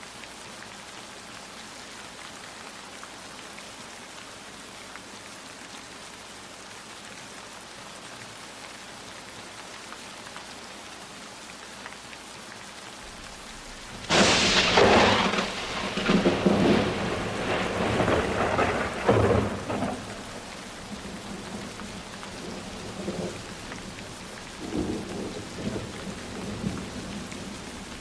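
Steady rain hissing. About halfway through, a sharp thunderclap breaks in and rolls on in uneven rumbles for several seconds, then fades to fainter rumbles near the end.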